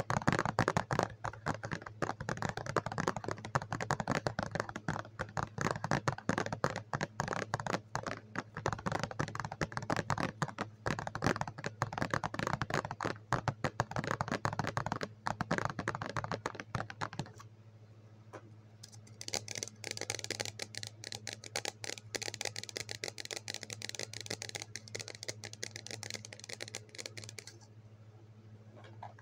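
Rapid, dense clicking and scratching from fingers tapping and handling a cardboard box held close to the microphone. The clicks get lighter and thinner a little past halfway, over a steady low hum.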